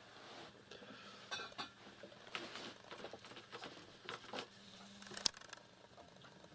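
Faint scattered taps and scuffles of cats batting a small piece of potato around on a rug, with one sharper click about five seconds in.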